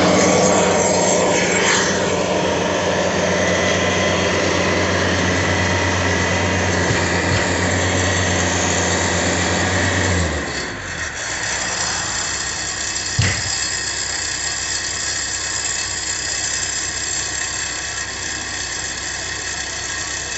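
Heavy equipment engine running steadily at a raised speed, then throttling down about ten seconds in and carrying on at a lower idle. A single sharp knock comes a few seconds later.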